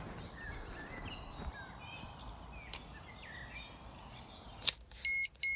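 Faint birdsong, then near the end an electronic carp bite alarm starts beeping loudly in quick bursts as a fish runs with the line: a screaming take.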